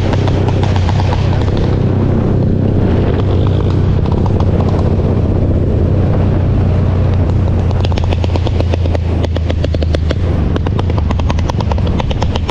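Motorcycle engine running steadily under way, a loud low drone with noise over it. In the last few seconds a rapid rattling pulse comes in.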